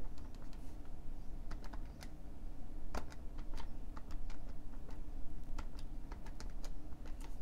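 Keys being typed: a quick, irregular run of sharp clicks, consistent with a calculation being keyed in, over a low steady hum.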